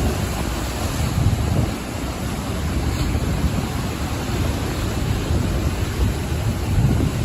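Ocean surf washing onto a shore in a steady rush, with a heavy low rumble and gusts of wind buffeting the microphone.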